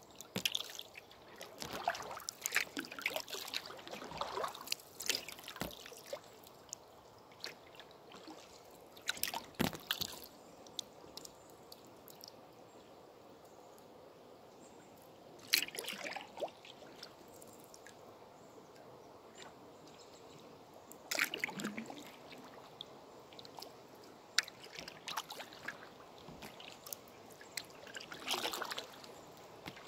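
Canoe paddle strokes in calm river water: a slosh and trickle of water dripping off the blade every several seconds, over a faint steady hiss of moving water.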